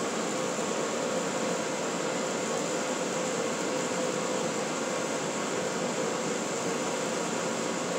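Steady hum and hiss of a blower running, with a faint steady mid-pitched tone and no hammer blows.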